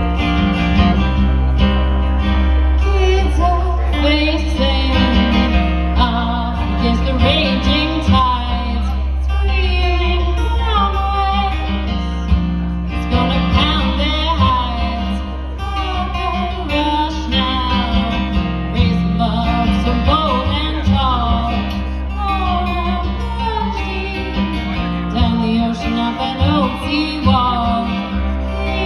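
Live acoustic folk band playing a song: strummed acoustic guitar with a woman singing and a fiddle carrying melody lines.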